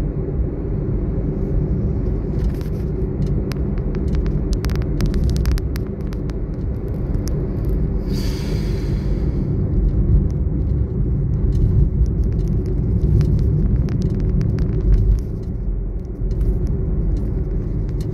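Steady low rumble of road and engine noise inside a moving car's cabin. A few light clicks come in the first half, and a brief hiss about eight seconds in.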